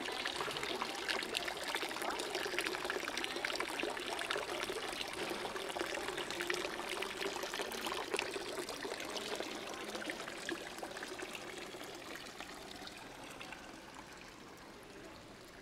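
Water pouring and splashing steadily, fading away over the last few seconds.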